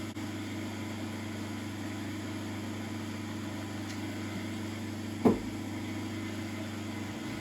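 9-inch South Bend lathe running steadily under power on its belt drive, a constant hum from the motor and spindle, just after the belt was moved to a new speed. One sharp knock about five seconds in.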